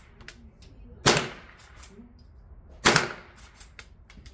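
Two .22 LR rifle shots about two seconds apart, each a sharp crack with a short decaying tail.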